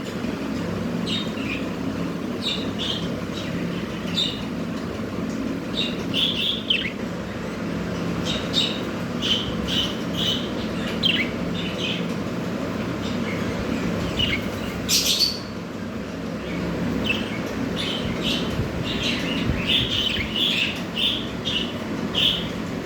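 Budgerigars chirping, many short chirps throughout over a steady low hum, with one brief, sharper, louder call about fifteen seconds in.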